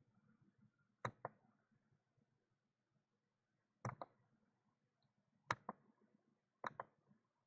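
Computer mouse clicking: four groups of sharp clicks, mostly quick pairs, a second or two apart, over near silence.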